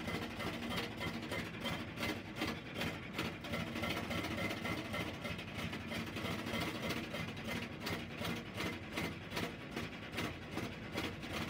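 Engine of a 1975 SMI 7200 snowblower running steadily, with an even, pulsing beat in its level.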